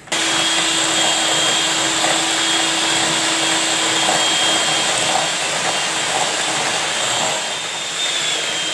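Electric hand mixer running at a steady speed, its beaters whipping cream in a steel bowl; it starts abruptly, with a steady high whine over the motor noise. Near the end the whine starts to fall in pitch as the mixer slows.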